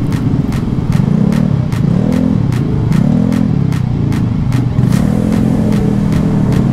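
Motorcycle engine running in slow traffic, its pitch rising and falling several times as the throttle is opened and eased off.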